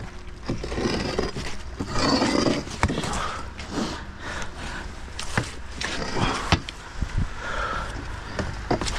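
A long rusty iron pole scraping and knocking against stone coping and brick paving as it is dragged over a wall and along the ground. One rough scrape stands out about two seconds in, and sharp knocks recur throughout.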